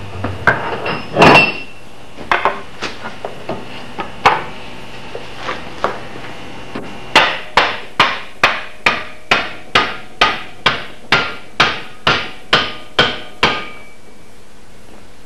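Hammer blows on the end of a wooden axe handle, driving it into the eye of a racing axe head held in a vise: a few scattered knocks at first, then a steady run of about fifteen sharp strikes, a little over two a second.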